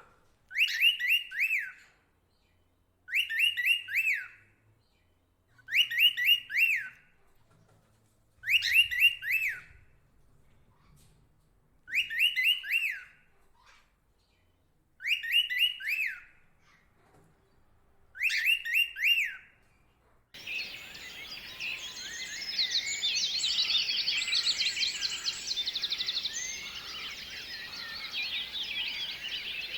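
A bird repeats the same short phrase of a few quick, falling whistled notes seven times, about every two and a half seconds. About two-thirds of the way through, the sound switches suddenly to a dense chorus of many birds calling at once over a steady hiss.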